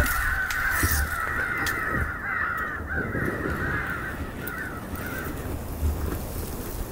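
A dense, continuous clamour of many crows cawing, played from an electronic crow call used to draw crows to decoys; it thins out and fades about five seconds in.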